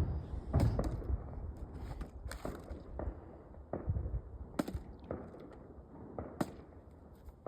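A series of irregularly spaced sharp knocks and thuds, roughly nine over several seconds, with a low rumble between them.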